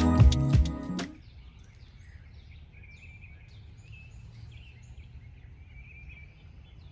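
Guitar-backed music ends about a second in. After that comes faint background noise, a low steady hum with scattered faint high chirps.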